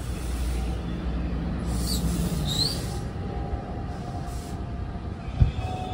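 NJ Transit Multilevel double-deck coaches rolling past a station platform: a steady low rumble of wheels on rail, with two short, rising high squeals about two seconds in and a single sharp thump a little after five seconds.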